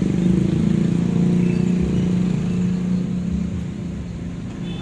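Large DNC Professional line-array PA and subwoofers playing loud, bass-heavy sound during a sound check, with a steady low hum of tones over pulsing bass. It eases off slightly near the end.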